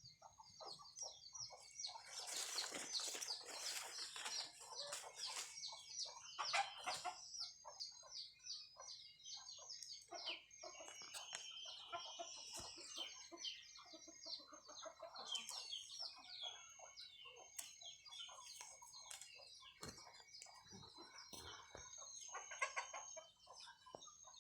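Chickens clucking and chirping, with many short, quick calls following one another. A faint steady high tone runs underneath.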